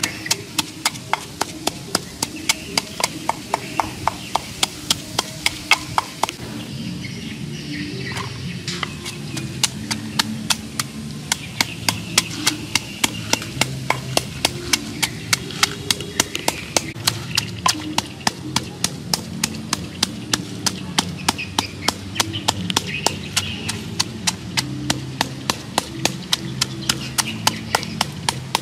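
Wooden pestle pounding in a wooden mortar, crushing chillies and salt into a wet paste. It makes a steady beat of sharp knocks, about three a second, which are lighter for a couple of seconds about seven seconds in.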